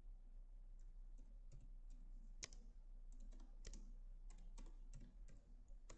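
Faint computer keyboard typing: irregularly spaced keystrokes as a word is typed out.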